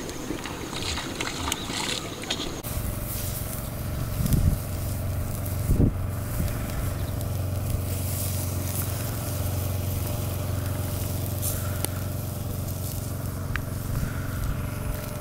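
A steady low motor hum, with two dull thumps about four and six seconds in. In the first few seconds, before the hum sets in, there is a crackling rustle.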